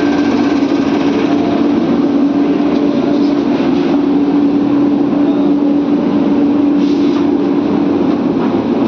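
Air compressor used for duct cleaning running steadily: a loud, even hum over a constant noisy rush.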